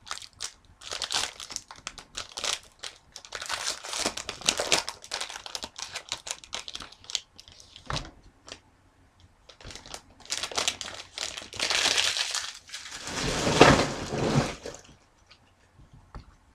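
A hockey card pack's wrapper being torn open and crinkled in the hands, in several bursts of crackling rustle that die away near the end.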